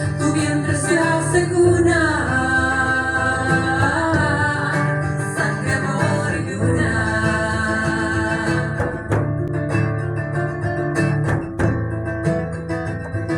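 A song with a voice singing long held notes over acoustic guitar. The singing stops about nine seconds in, and the guitar carries on with plucked notes.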